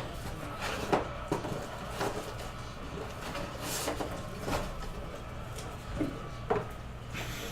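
Trading cards and card packs being handled on a table: scattered light clicks and taps, with a brief rustle a little before halfway, over a steady low hum.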